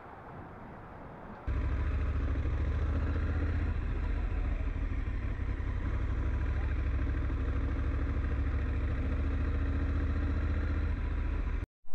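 Honda Africa Twin motorcycle engine running steadily at an even low pitch. It comes in on a cut about a second and a half in, after a short stretch of rushing noise.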